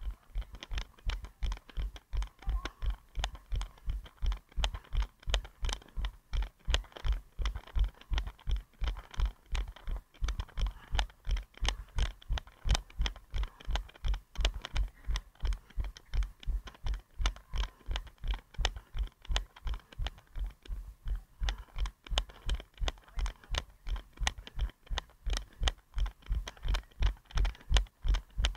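A runner's footfalls thud in a steady rhythm, nearly three strides a second, picked up by a head-mounted action camera that jolts with each step.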